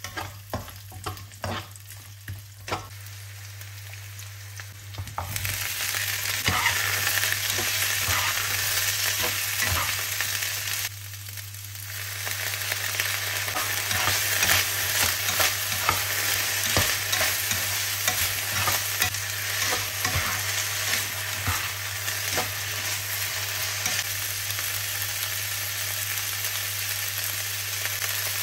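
Vegetables stir-frying in a hot granite-coated wok: a spatula scraping and clacking against the pan over a light sizzle. About five seconds in, the sizzle turns to a much louder hiss as broccoli and vinegar hit the hot oil, and the spatula clatter carries on through it.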